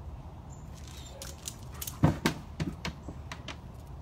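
A large dog landing on a raised dog cot: a run of sharp knocks about two seconds in, the first the loudest, followed by a few lighter clicks of paws and claws.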